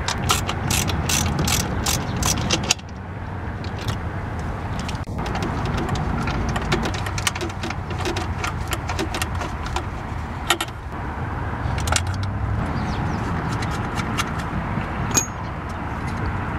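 Socket ratchet clicking as it turns a bolt at the throttle body: a quick run of about four clicks a second for the first three seconds, then scattered single clicks over a steady low background noise.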